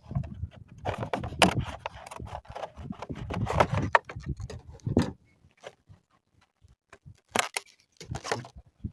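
Packaging being handled and opened: rustling and scraping with many short clicks and knocks. There are a couple of seconds of near silence past the middle, then a few sharp clicks near the end.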